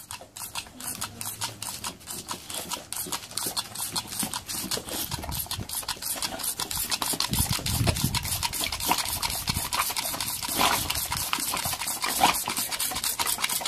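Rapid clicking, about five a second, from a toy water pistol's trigger being pumped as it squirts a stream of water at a boxer dog, which snaps at the water. The clicking gets louder in the second half.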